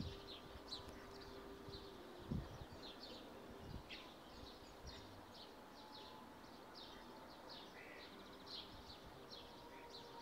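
Faint outdoor ambience with small birds chirping over and over in short high notes, several a second. A single soft low thump comes about two seconds in.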